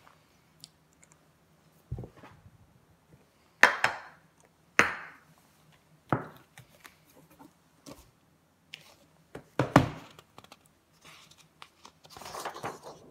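Handling noise close to the microphone: a string of sharp knocks and clatters, about six loud ones spread irregularly, then a rustling, crinkling sound near the end.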